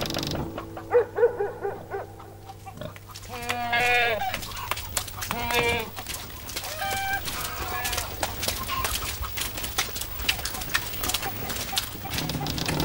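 Farmyard animals calling: a handful of separate bleating and clucking calls, one wavering bleat about four seconds in, over scattered light clicks and knocks.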